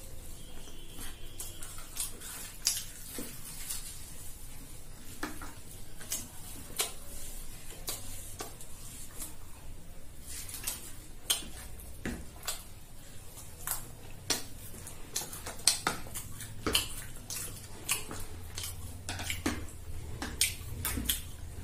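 Metal spoons clinking and scraping against plates and bowls as food is scooped, in irregular sharp clicks that come more often in the second half.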